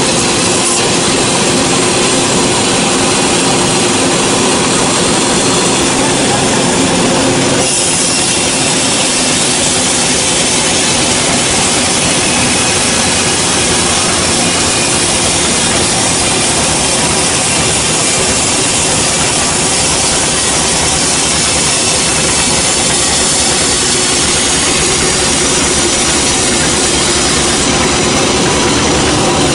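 Sawmill band saw running and cutting through a large gmelina log: a loud, steady mechanical noise that shifts in tone about eight seconds in.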